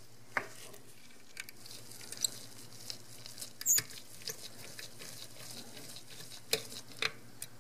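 Faint, scattered small clicks and taps from gloved hands and tools handling the opened-up Canon EOS 6D body, irregular and a few seconds apart, the loudest a little before the middle. A low steady hum runs underneath.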